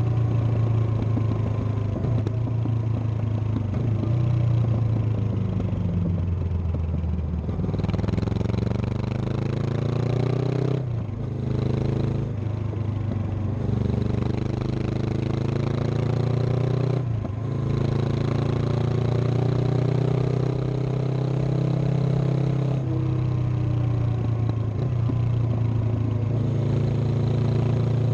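Honda CB500X's 471 cc parallel-twin engine running, its exhaust note rising and falling with the throttle over several seconds at a time, with a few brief sharp dips partway through.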